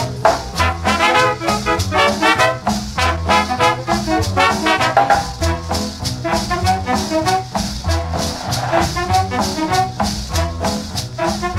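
Salsa music with a horn section of trombones and trumpets playing an instrumental passage over a steady bass and percussion beat.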